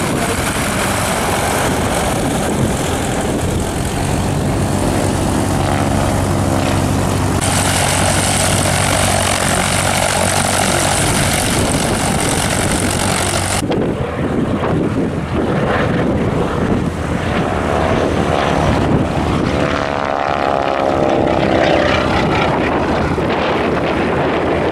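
Propeller aircraft piston engines across several shots: a steady engine note from a CAP 10 aerobatic monoplane running on the ground, and the engines of biplanes flying a wingwalking display overhead. The sound changes abruptly twice as the shots change.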